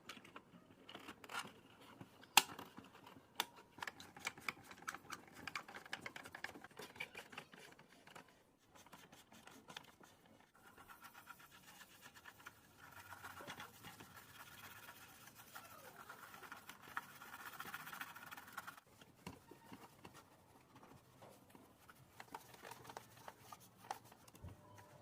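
Faint clicks, taps and scraping of small hard parts being handled, with a steadier scratchy noise in the middle that stops suddenly.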